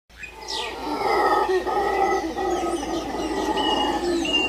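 Howler monkeys howling in a rough, sustained roar that builds over the first second, with birds chirping over it near the end.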